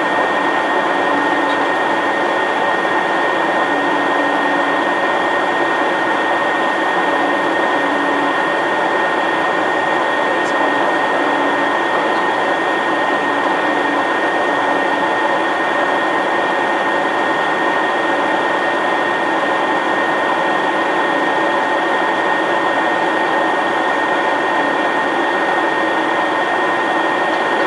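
Steady cabin noise in the cockpit of an Eclipse 500 very light jet on approach: its twin Pratt & Whitney Canada PW610F turbofans and the airflow make a constant rush with a steady high whine over it.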